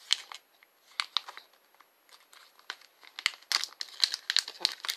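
Packaging of a gel eyeliner duo crinkling and tearing as it is opened by hand. Scattered crackles at first, growing denser and louder about three seconds in.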